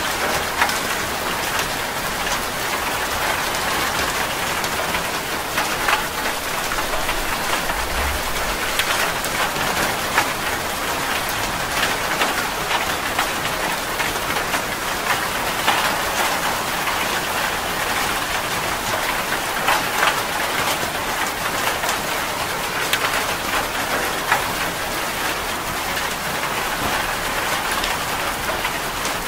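Steady rain: an even hiss dense with the ticks of individual drops striking.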